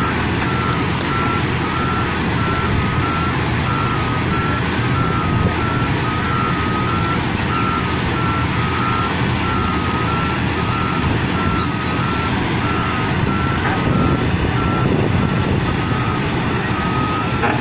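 Heavy machine's reversing alarm beeping steadily, about two beeps a second, over the noise of its running engine.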